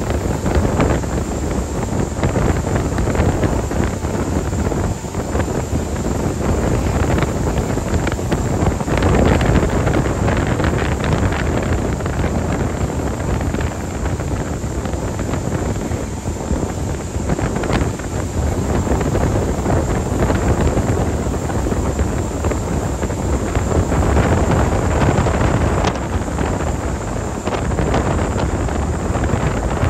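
Wind buffeting the microphone over the steady noise of a ferry under way: engine drone and rushing water.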